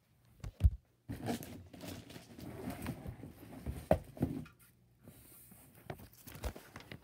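Packaging being handled as a desktop PC is pulled from its box: cardboard and plastic rustling and crinkling, with a sharp knock about half a second in, another about four seconds in, and a softer knock near the end.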